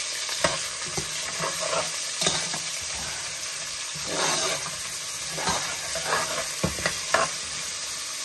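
Chopped onions with whole spices sizzling in an aluminium pot as a metal spoon stirs them, the spoon scraping and clicking sharply against the pot several times.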